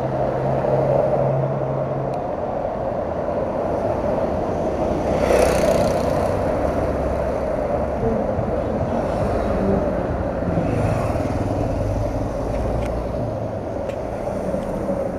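Steady engine and traffic noise of motorcycles and vehicles in the street, with a low engine hum in the first two seconds and a brief louder burst of noise about five seconds in.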